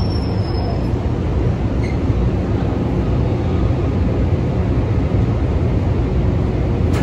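PATH rapid-transit train, PA5 cars, running with a steady, loud low rumble in the underground station.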